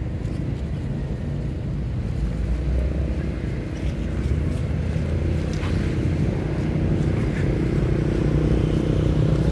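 A motor vehicle's engine running steadily nearby, a low hum that grows gradually louder toward the end.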